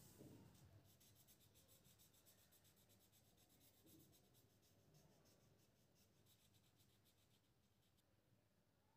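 Very faint scratching of a pen on paper as short strokes are drawn, a quick run of small scratches.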